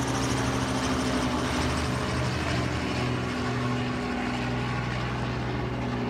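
News helicopter flying overhead: a steady rotor chop and engine drone, growing gradually quieter as it passes.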